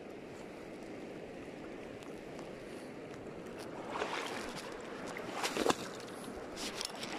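Steady rush of river water flowing, with louder splashing about four seconds in and again about a second and a half later.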